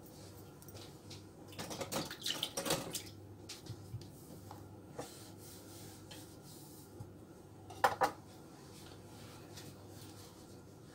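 Light clinks and knocks of kitchen dishes being handled, several in the first few seconds and one brief ringing clink about eight seconds in, over a faint steady low hum.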